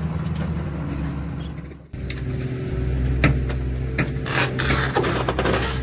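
Heavy machinery's diesel engine running steadily with a low drone, with a few metallic knocks and bursts of scraping noise in the second half. The sound cuts briefly about two seconds in and resumes.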